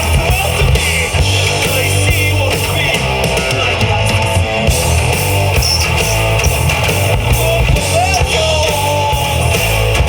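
Rock band playing live: distorted electric guitars, bass and drum kit, with a vocal line.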